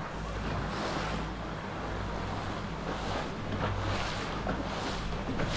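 Twin 300 hp outboard motors running steadily at low speed, a low hum under water washing and splashing off the hull and wake. The splashing grows a little louder near the end.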